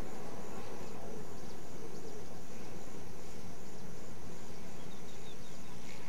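Wind rumbling on the microphone, with the faint, steady high buzz of a distant radio-controlled model airplane's engine.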